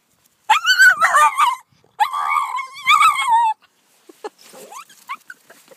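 A small Jack Russell-type terrier whining in two long, high cries with a wavering pitch, begging for a wooden stick to be thrown. Faint scrapes and clicks follow in the last two seconds.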